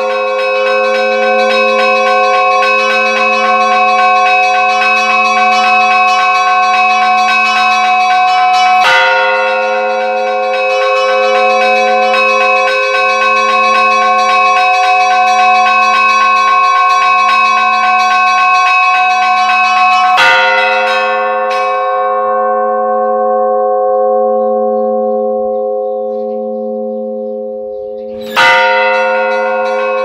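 Monastery church bells ringing: a long, sustained ring with a low wavering hum, renewed by fresh strikes about 9 s, 20 s and 28 s in. After the strike at about 20 s the higher tones die away, leaving the lower ones humming until the next strike brings the full ring back.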